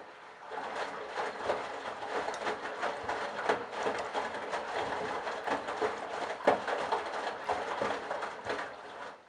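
Candy Bianca washing machine drum turning during a delicates wash, laundry and water sloshing and tumbling with irregular soft knocks; the drum starts just after the beginning and stops near the end, as in the gentle turn-and-pause action of a delicates cycle.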